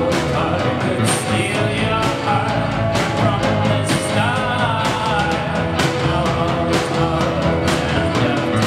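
A rock band playing live: drum kit and electric guitars in a steady, dense wall of music, with a wavering melody line over it.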